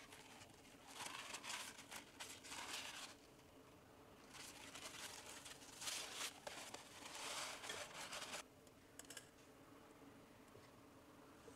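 Kitchen paper towel rustling and crinkling as it is handled, folded double and laid into a mesh strainer, in two stretches of a couple of seconds and about four seconds, with a few small crackles after.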